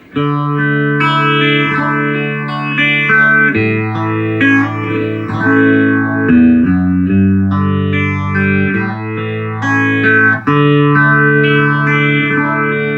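Electric guitar chords played through a 1975 Ibanez/Maxon Phase Tone phaser pedal with its speed set to almost 90%, giving a fast phase sweep over the sustained chords, which change every second or so.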